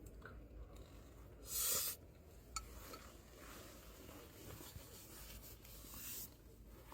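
Faint rustling and handling noises, with one short, loud scraping rustle about one and a half seconds in and a sharp click about a second later.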